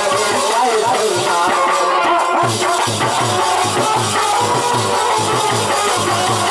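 Live Bundeli folk (rai) music: a harmonium melody over a steady drum rhythm.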